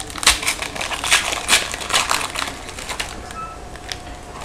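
A trading card pack's wrapper being torn open and crinkled by hand, a run of crackling rustles that is loudest in the first two and a half seconds, then fades to softer handling of the cards.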